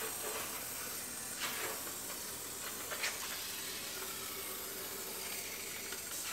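Steady hiss of rust-proofing cavity wax being sprayed through a long, thin wand into the hood's seams.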